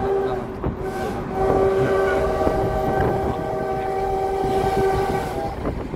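Train horn sounding one long, steady blast that stops near the end, heard over the low rumble of the moving car the recording is made from.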